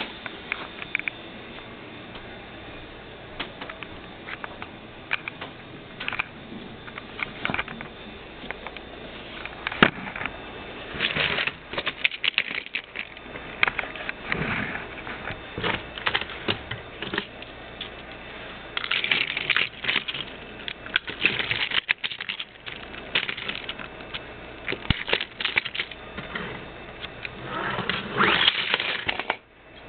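Tomy battery-powered toy trains running on blue plastic track: a rattling of small clicks from wheels and wagons on the track pieces, in uneven runs of fast clicking and clatter.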